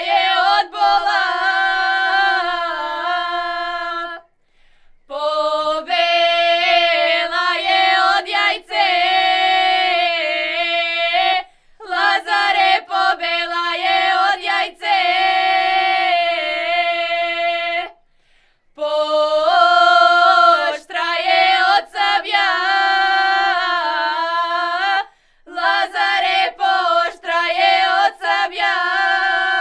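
A group of young women singing a Macedonian Lazarus Saturday (lazarki) ritual song unaccompanied, in phrases of about six or seven seconds on long held notes, with short pauses for breath between them.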